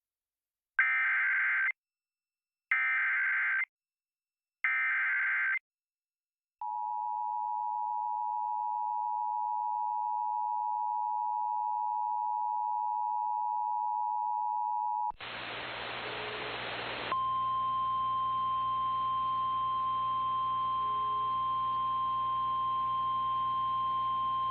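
Emergency Alert System activation. Three bursts of SAME digital header data, each about a second long, are followed by the two-tone EAS attention signal, held steady for about eight seconds. Then comes a short burst of radio hiss and, about 17 seconds in, the steady single-tone NOAA Weather Radio warning alarm over faint static, signalling that a warning is about to be read.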